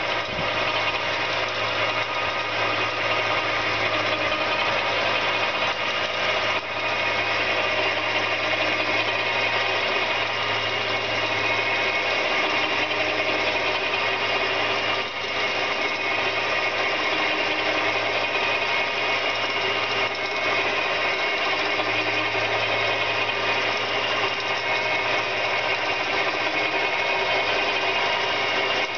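Small engine-driven winch running steadily under load as it hauls the boat on its cradle by the winch cable.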